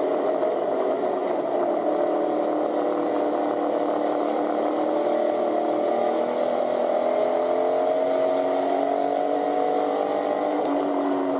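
Pure stock race car's engine heard from inside the cockpit, running hard under race load, its pitch slowly falling and rising again as the revs change around the track.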